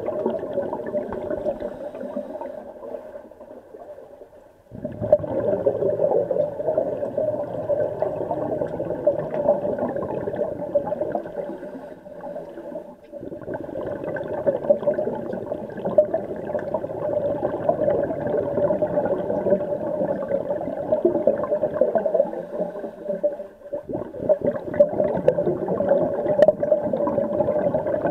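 Underwater bubbling and hiss of scuba divers' regulator exhaust, heard through the water. It comes in long stretches of about nine seconds, each broken by a brief lull, in the rhythm of slow breaths.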